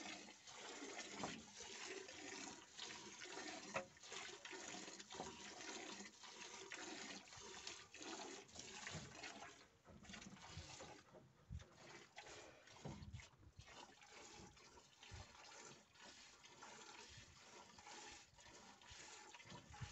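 Faint, repeated squirts of milk from a cow's teats being hand-milked into a metal bucket partly filled with milk.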